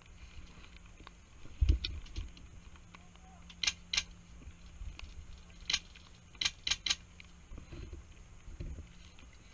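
A dull thump about two seconds in, then sharp clicks: two, a single one, and a quick run of three near the end.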